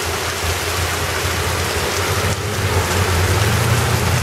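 Heavy rain pouring down onto a flooded street: a dense, steady hiss. A low rumble underneath grows a little louder near the end.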